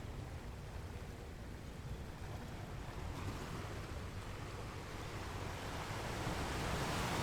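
Sea waves washing in, a steady rushing hiss that slowly swells louder over the last few seconds as a wave builds, over a low rumble of wind on the microphone.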